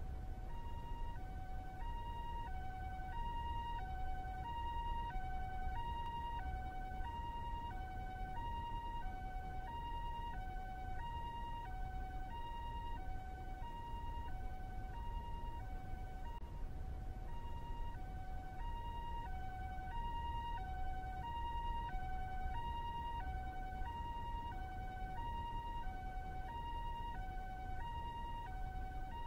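Two-tone hi-lo ambulance siren of the kind used in Japan, steadily alternating between a higher and a lower note about every two-thirds of a second, over a low steady rumble of city background.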